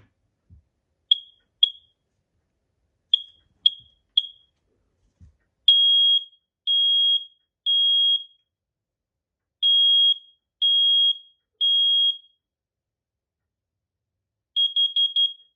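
FireX FADCM combination smoke and carbon monoxide alarm's horn running its push-to-test sequence in a single high tone. First come a few short chirps, then two rounds of three long beeps, the temporal-three smoke-alarm pattern, and near the end a quick burst of four short beeps.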